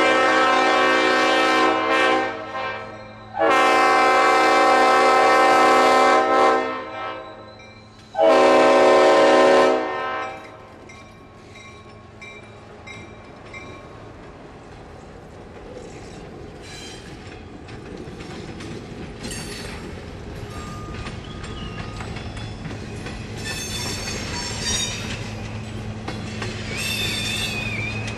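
GP16 diesel locomotive's air horn blowing for a grade crossing: a blast sounding as it opens, a long blast about three seconds in and a shorter one about eight seconds in. Then the locomotive rolls through the crossing, engine running and wheels clacking over the rail joints, growing slowly louder.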